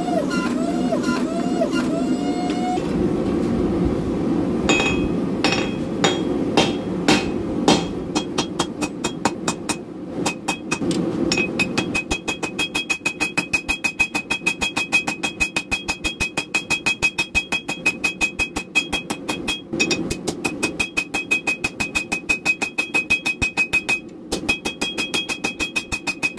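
A forging press whines at the start while its dies squeeze a glowing stainless san mai billet. After a few scattered blows, hand-hammer strikes on the hot billet settle into a steady rhythm of about three a second, each blow ringing off the steel anvil.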